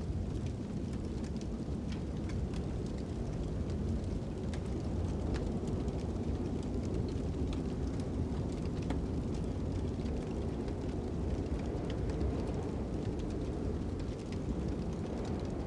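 Fire crackling with scattered small pops over a steady low rumble of wind.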